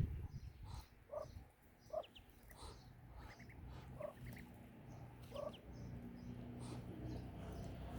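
Farmyard poultry calling: short clucks repeated about once a second, with a few faint high peeps, over a low rumble that grows louder near the end.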